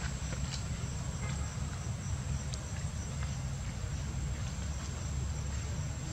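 Outdoor ambience: a steady low rumble with a thin, high, steady insect drone and faint chirps repeating evenly over it.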